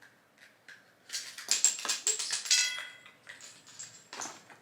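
Plastic crinkling and clicking as a Kinder Surprise toy capsule is opened and the toy inside is handled. The densest crackle comes from about one to three seconds in, with a shorter burst near the end.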